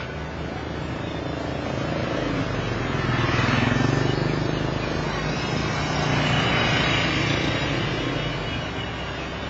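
Street traffic: motor vehicles passing close by, the engine noise swelling and fading twice, loudest about four and about seven seconds in.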